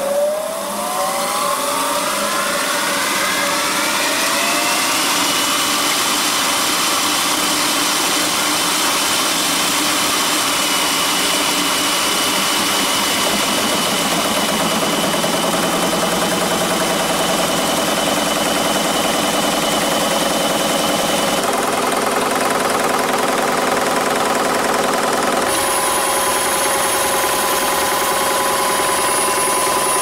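Belt-driven sawmill machinery of a multisaw mill: an electric motor and a large flywheel coming up to speed, with a whine rising over the first few seconds, then running steadily with a high whine over a dense mechanical clatter. The sound changes abruptly twice in the last ten seconds.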